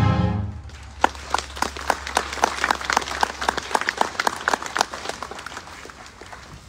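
A marching band's final held chord ends in the first half second, then a crowd applauds. The clapping is densest for the first few seconds, then thins out and fades.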